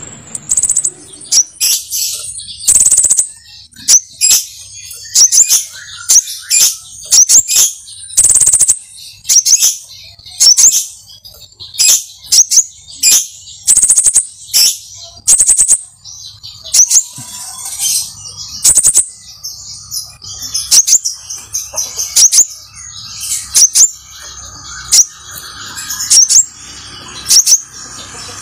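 A pentis raja flowerpecker calling loudly and over and over. Its sharp, high-pitched chirps come in quick bursts about once a second, mixed with sudden sharp clicks or flutters.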